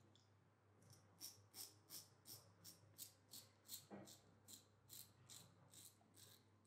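Safety razor scraping stubble on the upper lip through shaving-cream lather in short, quick strokes, about three a second: a faint, even rasping.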